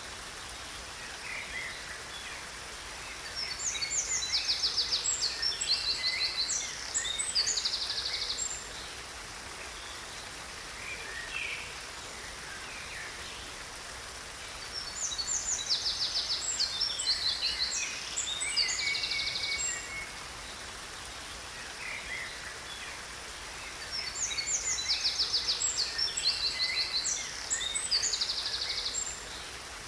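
A songbird singing a phrase of fast, high trills three times, about ten seconds apart, over a steady rush of falling water.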